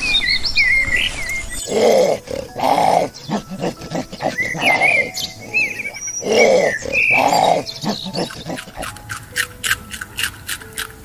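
Animal calls: high bird chirps mixed with a series of loud, low calls in pairs, followed near the end by a rapid run of clicks.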